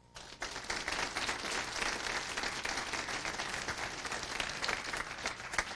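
Audience applauding: many hands clapping at once, starting right after the speaker's thanks and tapering off near the end.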